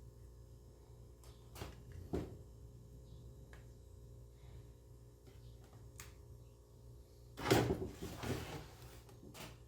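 Light clicks and taps of small parts being handled while an SSD is fitted into a laptop's drive bay, with a louder clatter of knocks about seven and a half seconds in.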